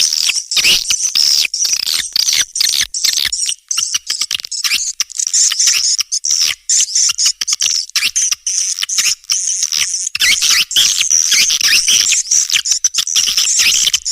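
Recorded swiftlet calls, a dense, fast chatter of high chirps and twitters without a pause: a swiftlet-house call sound of the kind played to lure edible-nest swiftlets.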